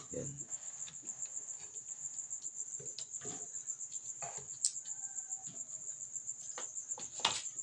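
Knife tapping and scraping on a cutting board as okra is cut and swept off, a handful of separate knocks, over steady cricket chirring.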